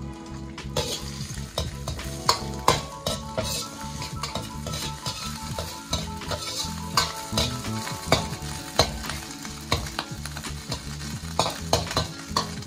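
Vegetables and prawns sizzling in oil in a hot steel wok as they are stir-fried, with a slotted metal spoon scraping and clinking against the wok many times.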